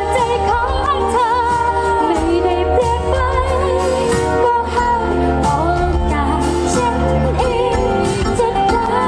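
A woman singing a pop ballad live into a microphone, backed by a band with acoustic guitar and drums. Her held notes waver with vibrato over a steady low bass line.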